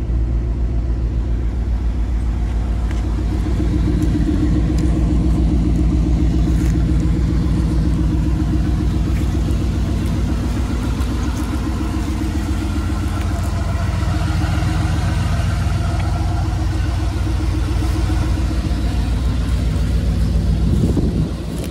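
1987 Chevrolet El Camino SS's 305 HO small-block V8 idling steadily, its exhaust pulses rumbling out of the side-skirt exhaust.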